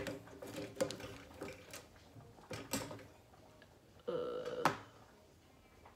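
Light clicks and taps of a makeup brush and eyeshadow palette being handled at a table, a few scattered ones in the first three seconds, then a short pitched sound ending in a sharper click about four seconds in.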